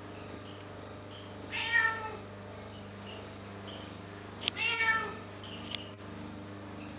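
Domestic cat meowing twice, two short calls about three seconds apart, with a sharp click just before the second. A low steady hum runs underneath.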